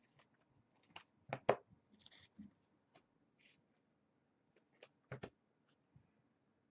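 Faint sounds of hands handling trading cards and packaging: short rustles, taps and clicks, loudest about a second and a half in and again about five seconds in.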